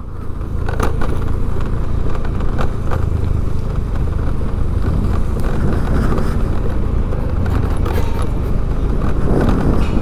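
Steady low rumble of street traffic and vehicle engines, with a few short clicks.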